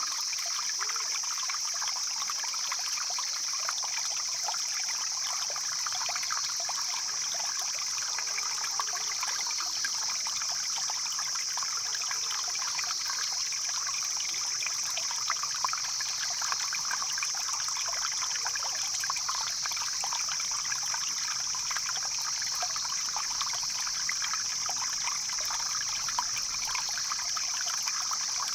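Mountain stream flowing steadily over stones, with the small splashes of water trickling and babbling.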